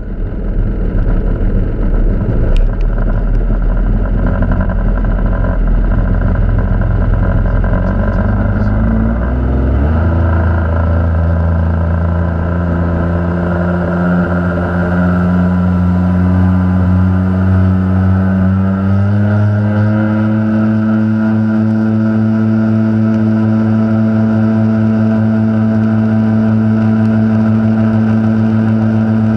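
Jet ski engine running as the craft pulls away and gathers speed, heard close from the handlebars with rough water and wind noise at first. About ten seconds in, a clear steady engine tone comes through. It steps up in pitch a little before halfway and then holds steady at speed.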